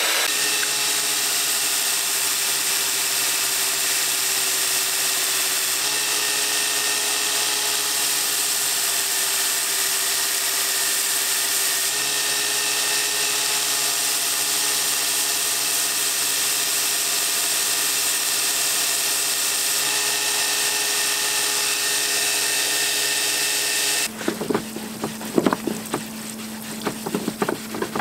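Workshop power tools shaping wooden knife-handle scales: a bandsaw cutting wood, then a belt grinder sanding, each a steady motor whine that changes abruptly at cuts every several seconds. Near the end this gives way to a parts-washer pump humming while a steel blade is scrubbed by hand, with irregular scraping and splashing.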